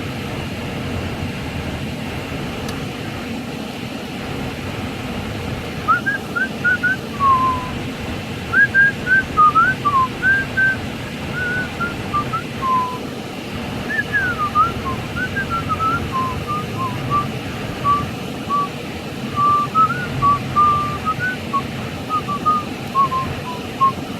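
A person whistling a tune: a run of short notes and quick slides that starts about six seconds in, over a steady low background rumble.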